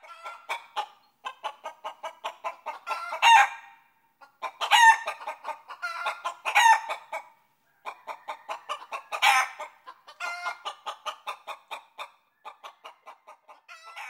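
Chickens clucking: a fast run of short clucks broken by about four louder, drawn-out squawks.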